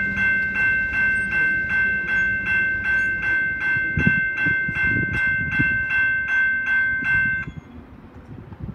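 Railroad crossing bell ringing in rapid, steady strokes over the low rumble of a freight train's last cars rolling away, with a few wheel clunks midway. The bell stops near the end as the crossing signals shut off once the train has cleared.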